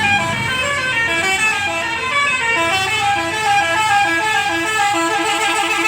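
Bus telolet horn of the Basuri type playing a fast tune: short tooting notes run up and down the scale several times a second, without a pause.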